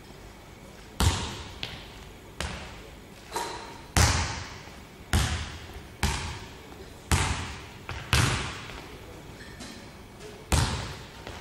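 A basketball bouncing on a hardwood gym floor, about one bounce a second with a few fainter ones between, each bounce echoing around the large hall.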